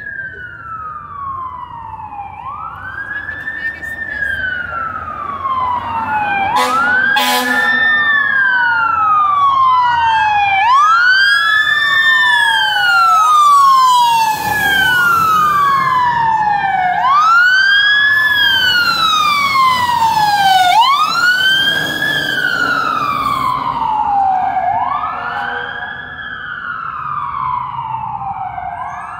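Fire apparatus sirens of Boston Engine 37 and Ladder 26 wailing, each cycle rising quickly and falling more slowly. Two sirens overlap out of step and are loudest through the middle as the engine passes close. A short steady blare sounds about seven seconds in.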